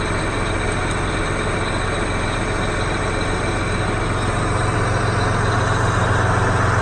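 John Deere 8245R tractor's six-cylinder diesel engine running steadily, heard inside the cab, warmed up after a cold start. About halfway through its low hum grows a little louder.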